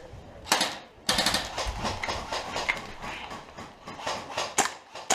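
Several sharp cracks and knocks: one about half a second in, a louder dense cluster about a second in, and a few more near the end, over low rustling.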